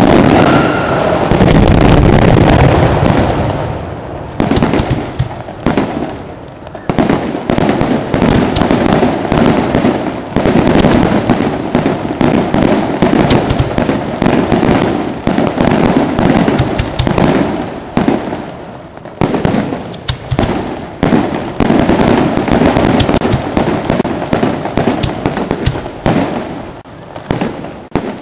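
Aerial fireworks display: a dense, continuous barrage of shell bursts and crackling, many bangs a second, loud throughout with brief dips around four and seven seconds in and near the end.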